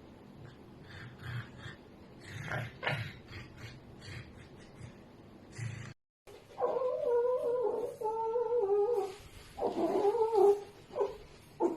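Red fox vocalising: faint short sounds at first, then, after a brief dropout about halfway in, loud drawn-out wavering cries in several runs.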